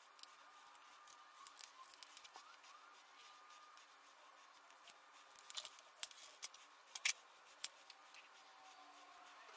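Faint handling sounds of a metal bag frame and leather strips being picked up and worked by hand on a cutting mat. Soft clicks and taps, with a run of sharper clicks in the second half.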